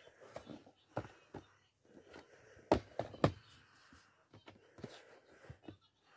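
Handling noise: scattered light knocks and clicks from cardboard toy boxes being moved and picked up by hand, loudest in a few sharp taps about three seconds in.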